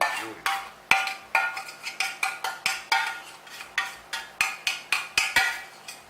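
A utensil knocking and scraping against a container in a quick run of ringing clinks, about three a second, stopping near the end. The last of the mango-pepper puree is being scraped out into the pan.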